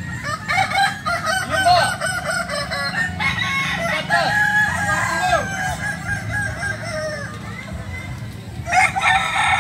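A row of Kukuak Balenggek roosters crowing over one another, their long multi-note stepped crows overlapping continuously, with a louder surge of crowing near the end.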